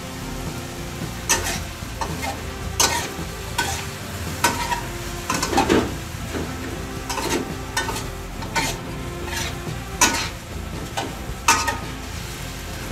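Metal spatula scraping and tossing French beans and pork around a metal wok, over a steady sizzle of frying in a little sauce. Sharp scrapes and clanks come about once a second.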